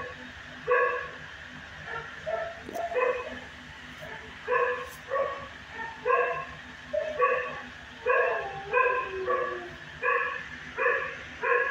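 A dog barking over and over, about one or two barks a second, in a shelter kennel room.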